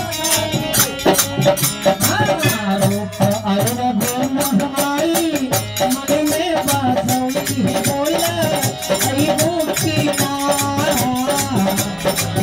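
Devotional bhajan: a man singing a gliding melody over a quick, even rattling percussion beat.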